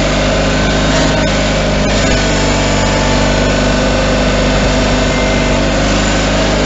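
Simplicity 20 GTH garden tractor's engine running steadily as the tractor drives.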